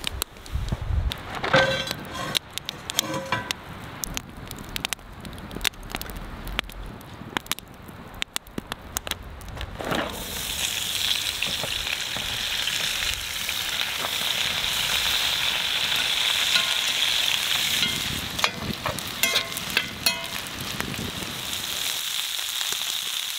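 Food sizzling in a hot pan over a campfire, starting suddenly about ten seconds in and then holding a steady high hiss. Before that come scattered clicks and knocks.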